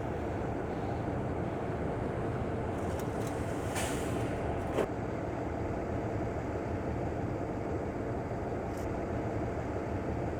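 Steady rumble of street traffic, with a short hiss about four seconds in and a single sharp click just before five seconds, and a fainter click near the end.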